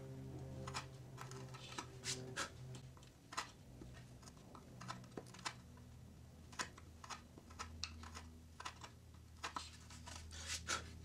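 Hand chisel paring and scraping wood from a routed groove in a stained poplar board: faint, irregular clicks and scrapes as the edge bites the wood, over a low steady hum.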